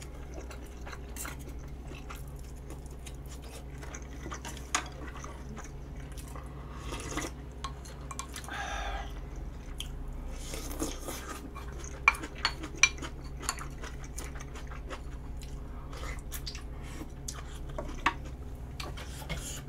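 Close-up eating sounds: chewing and a couple of slurps of hotpot broth from a spoon, with sharp clinks of spoon and chopsticks against bowls, over a steady low hum.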